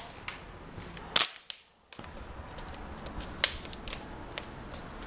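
A sharp knock about a second in, then a short dropout. After that, a few faint clicks and crackles as a plastic water bottle and rope are handled.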